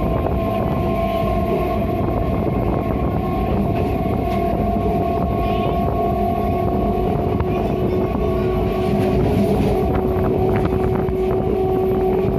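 Train running as it departs: a steady rumble with several steady humming tones, and a few sharp clicks near the end.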